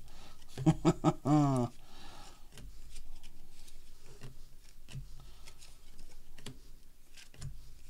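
Glossy trading cards being handled and flipped from one hand to the other, with faint scattered clicks and slides of card against card. About a second in, a man gives a brief wordless murmur.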